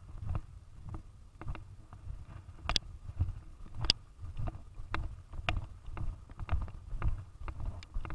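Footsteps walking through wet grass, a bit under two steps a second, each a dull thud, with occasional sharper clicks of the camera being handled.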